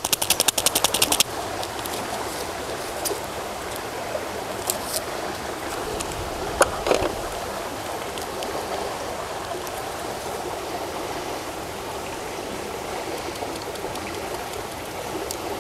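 Creek water running steadily, with a quick rattle of light clicks in the first second and a few faint ticks afterwards.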